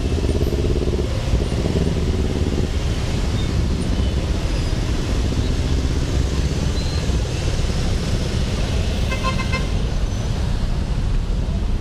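Busy city road traffic, engines running steadily as vehicles pass, with one short horn toot about nine seconds in.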